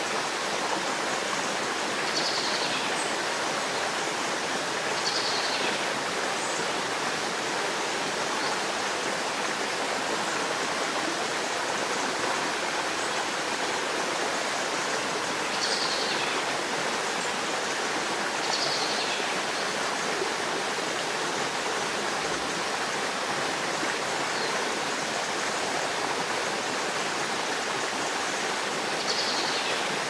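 Forest river flowing, a steady even rush of water. A bird calls now and then over it, about five short falling chirps.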